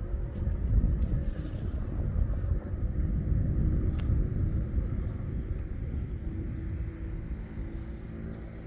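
A steady, fluttering low rumble that fades slightly near the end, with a faint click about four seconds in.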